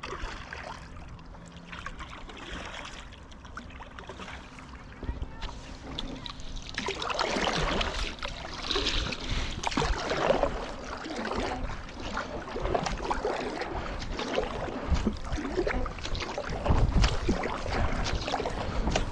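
Paddle strokes and water splashing and gurgling around a stand-up paddle board, picked up by a mouth-held bite-mount camera. It gets louder and busier from about seven seconds in.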